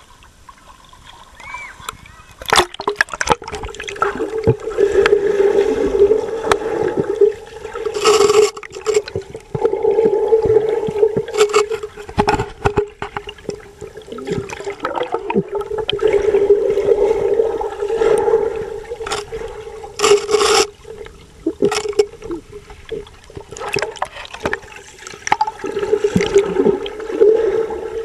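Underwater recording aboard the LCTR-1 diving robot: a steady motor hum that swells and fades, with water gurgling around it and a few short bursts of rushing noise. The hum starts about two and a half seconds in, as the robot goes under.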